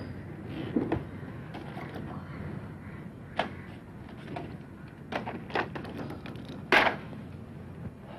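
Clicks and knocks as a black hard-shell briefcase is handled and opened on a cane table. The loudest is a sharp knock about seven seconds in.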